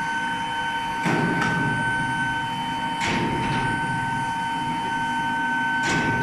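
Induction melting furnace running: a steady high whine from its medium-frequency power supply and coil, over a rushing, rumbling background noise that swells suddenly three times.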